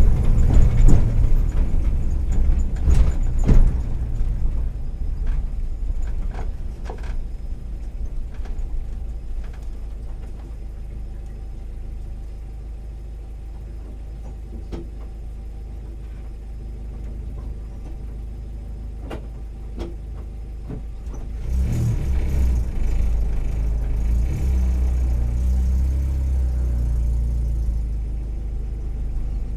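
A 2009 Volkswagen Kombi's 1.4-litre EA111 four-cylinder engine running on the road, with a few sharp knocks in the first several seconds. The engine noise drops off and stays low for a while, then rises sharply about twenty seconds in as it pulls again.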